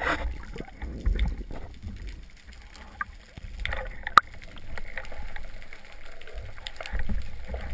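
Sea water sloshing and gurgling around a camera held at the surface, with scattered knocks and a sharp click about four seconds in from handling a speargun.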